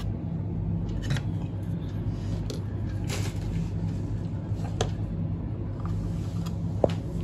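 Steady low electrical hum with a few scattered clicks and taps from small tools being handled at a circuit board; the sharpest click comes near the end.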